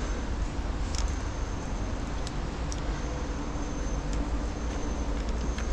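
Steady hiss of rain on a city street over a low rumble, with a few light clicks scattered through it.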